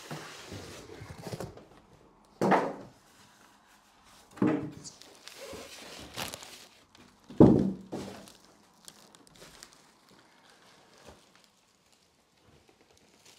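Cardboard box and packaging handled while a large TV is lifted out: rustling and scraping with three dull thuds, the loudest about seven and a half seconds in, then quieter handling noise.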